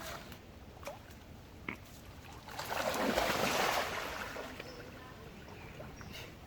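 A splash of pond water swelling up about two and a half seconds in and dying away over about a second and a half, with a few small clicks and knocks around it.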